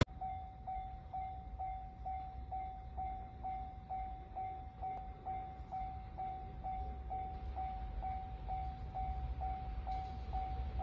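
Japanese railway level-crossing alarm ringing, an electronic bell tone repeating about twice a second as the crossing warns of an approaching train. Beneath it a low rumble grows stronger in the second half.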